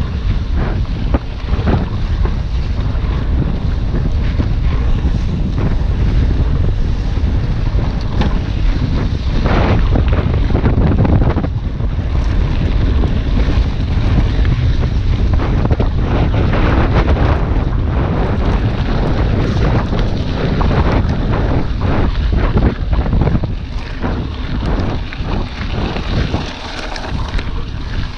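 Wind buffeting the microphone of a camera on a moving mountain bike, over a constant clatter of tyres and frame rattling across a loose gravel road, with many small knocks.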